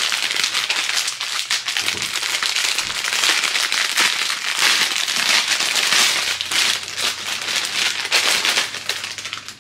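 Plastic packaging crinkling and crackling continuously as bags of diamond painting drills are handled.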